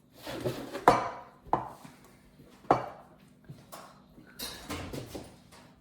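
A utensil knocking and scraping against a mixing bowl while brownie batter is stirred. There are several sharp clinks, the loudest about a second in and near three seconds in.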